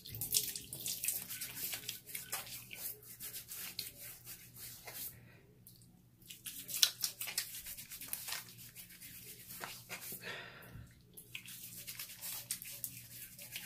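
Irregular wet rubbing and scraping with small crackles and clicks: hands working with water and shaving soap.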